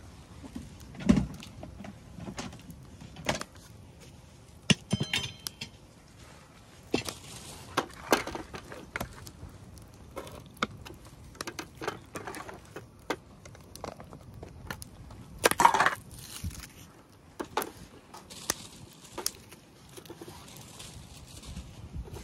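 Scattered knocks, clicks and clinks of cooking gear and containers being handled, with a short metallic ring about five seconds in and a louder scrape or rustle near the middle.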